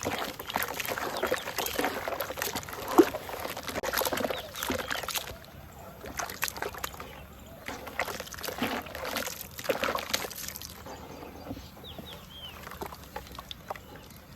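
Red dirt crumbling and being dipped in water: crackling, small splashes and sloshing, busy for the first five seconds and then sparser.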